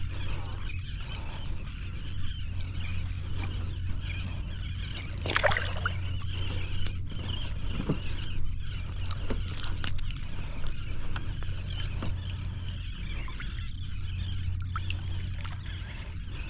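Kayak gliding on calm sea: water lapping and trickling against the hull over a steady low rumble, with small knocks throughout and a brief louder splash about five seconds in.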